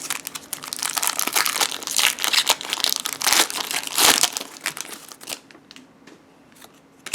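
A Pokémon trading card booster pack's foil wrapper being torn open and crinkled, dense crackling for about five seconds, then fading to a few small ticks and one sharp click at the end.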